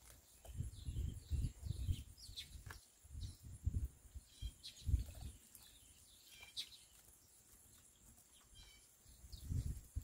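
Sparrows giving short, scattered chirps, over intermittent low rumbling gusts of wind on the microphone, which are the loudest thing heard. The gusts ease off for a few seconds past the middle.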